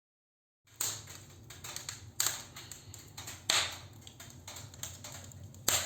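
Wood fire crackling in an open English-style fireplace: irregular sharp pops and snaps that start about a second in, a few louder than the rest.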